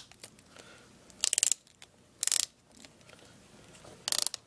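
Three short crackling bursts of handling noise as a laptop's LCD cable is worked free, with its tape and plastic parts rubbing and crackling.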